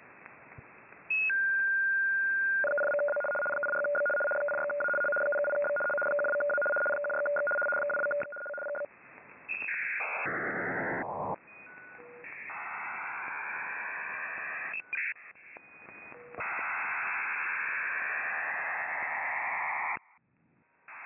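Shortwave receiver audio in upper sideband while tuning through the 8 MHz maritime radio band. First a single steady tone, then a pair of steady tones held for about six seconds. Then the dense rushing noise of wide digital data signals, with pitches sliding as the dial moves, dropping out near the end.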